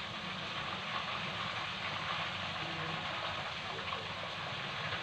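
Chicken pieces frying in hot oil in a wok: a steady, even sizzle.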